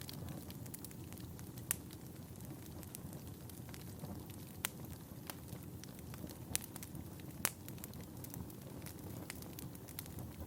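Wood fire burning: a steady low rumble with scattered sharp crackles and pops, a few of them standing out louder.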